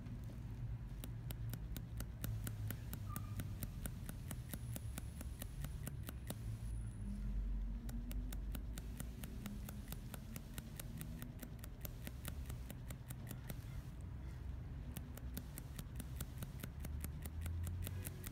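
Rapid, even clicking of a hand-held manual shading tool with a 21-needle shading needle tapping into a practice mat in the soft-tap movement, several taps a second. Two brief breaks come about a third and three-quarters of the way through.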